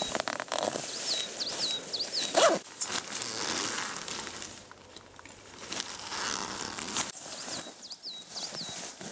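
Tent door zipper pulled open in several rasping strokes, then the nylon tent fabric rustles as someone crawls out. A small bird chirps a quick run of high notes twice.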